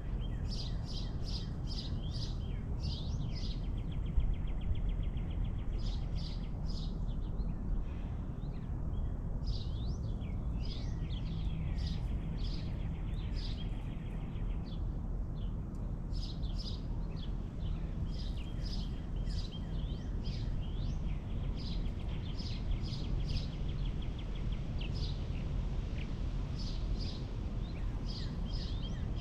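Several small birds chirping throughout, with short rapid trills at times, over a steady low background rumble. A single brief knock about four seconds in.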